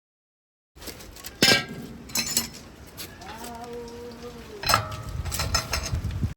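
Metal clinks and clanks of hand tools being handled, in a handful of sharp strikes, with a short steady tone in the middle.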